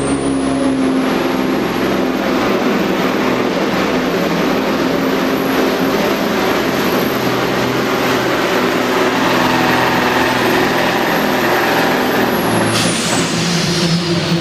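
DAF 95 supersport pulling truck engine running hard at full throttle while dragging a weight sled, loud and steady, with a high whine that rises at the start and falls away near the end as the throttle comes off and the pull ends.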